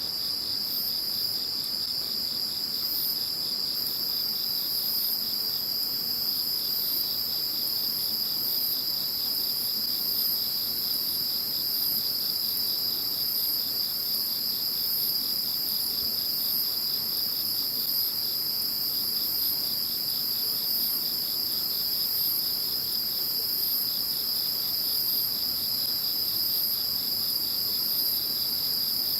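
Chorus of singing insects: a steady, continuous high trill, with a higher chirping layer that pulses about once a second.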